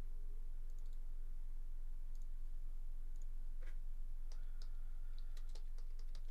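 Scattered clicks of a computer keyboard and mouse, coming thicker in the last couple of seconds, with one louder knock a little past halfway. A steady low electrical hum runs underneath.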